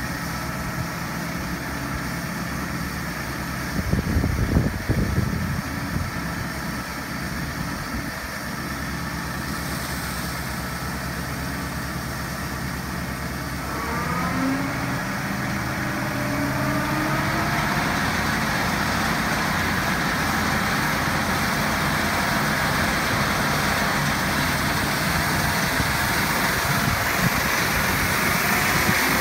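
New Holland T6.120 tractor's four-cylinder diesel running steadily, with a brief burst of loud knocks about four seconds in. Roughly halfway through, the tractor revs up and the PTO-driven Alpego TT97 flail mulcher spins up with a rising whine. After that the mulcher runs at speed with a steady, louder rushing sound over the engine.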